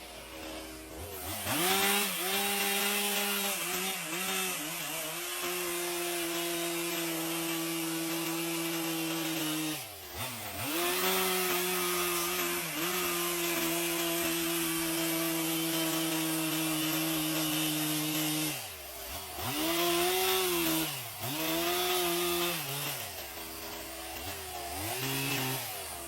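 Two-stroke chainsaw revving up and held at high speed for long stretches while cutting wood, dropping back to idle about ten seconds in and again near the end, then revved up and down several times in short bursts.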